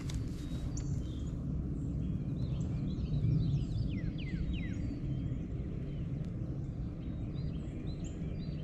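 Several small birds chirping and calling, many short falling chirps scattered throughout, over a steady low outdoor rumble.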